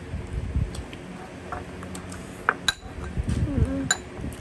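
Spoon and chopsticks clinking against ceramic rice bowls in a few sharp taps, mostly between about two and four seconds in, with chewing in between.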